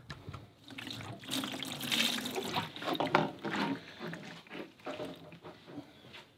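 Diesel pouring from a plastic jerry can into a plastic tub over cast-iron drill parts, splashing and trickling as the parts are covered to soak off old grease. It is loudest in the first half and dies down after about four seconds.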